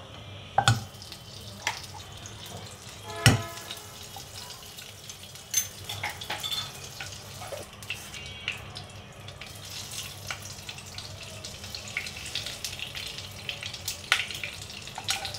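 Ghee melting and sizzling in a nonstick karai, with many small crackles. A couple of sharp knocks of a metal spoon against the pan in the first few seconds, and small clicks near the end as whole spices (bay leaf, cinnamon, cardamom) are dropped into the hot ghee.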